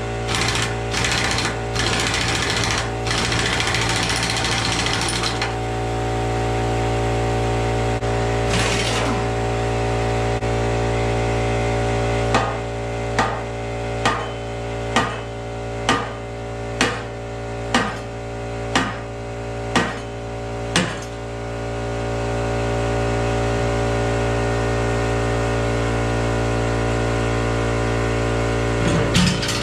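Impact wrench rattling at bolts for about five seconds. A steady machine hum runs underneath. Later come about ten sharp, evenly spaced knocks, roughly one a second.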